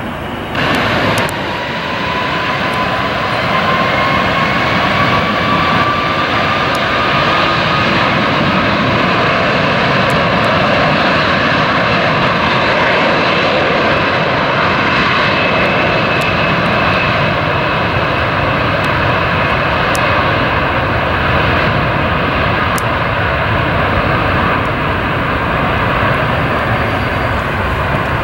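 Airbus A330's twin jet engines at high power on the runway: a whine rises in pitch over the first several seconds as they spool up for the takeoff roll, then holds over a steady loud rush of jet noise.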